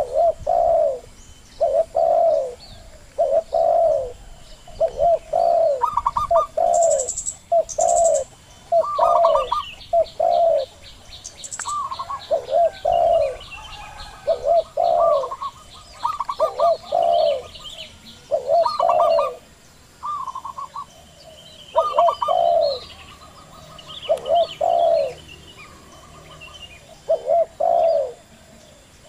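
Zebra doves and spotted doves cooing, short coo notes repeated about once a second, often a higher note followed by a lower rolling one. Smaller birds chirp faintly and higher, one giving a fast, even series of ticks for a few seconds near the middle.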